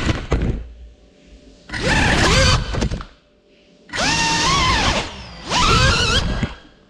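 CineLog 35 cinewhoop FPV drone's motors and ducted props whining in short throttle bursts, about three times, each one gliding up and down in pitch before dropping away.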